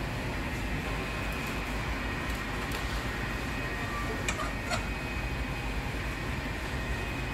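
Steady drone of bakery machinery, like a running fan, with two faint steady high whines over it. Two light clicks a little past the middle.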